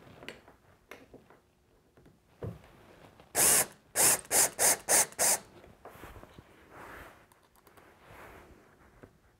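DeWalt 18V cordless drill driving a screw through a tip-out tray hinge into a wooden drawer front. One short run about three and a half seconds in, then five quick trigger bursts as the screw is run down tight.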